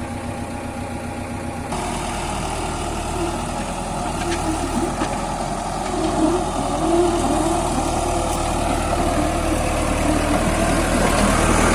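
Komatsu PC75UU-3 mini excavator's diesel engine running. It picks up about two seconds in and gets gradually louder, with a wavering mid-pitched whine over the engine hum.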